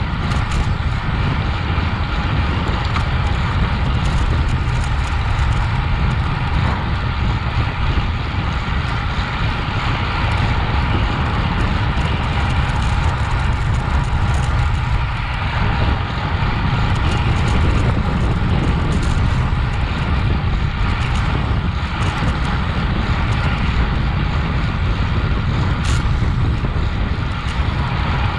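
Steady wind rush on the microphone of a road bicycle riding fast.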